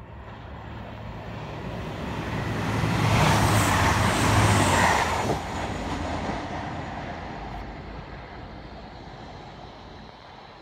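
TransPennine Express passenger train running past along the station platform: a rumble of wheels and engine that swells, is loudest about three to five seconds in, drops off suddenly just after that, then fades away as the train moves on.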